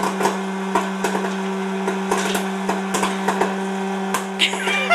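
Hot-air popcorn popper running: a steady fan-motor hum with kernels popping in irregular sharp cracks throughout.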